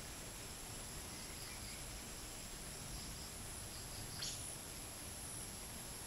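Steady high-pitched drone of crickets and cicadas, with light wind rumbling low underneath. A brief sharp chirp sounds about four seconds in.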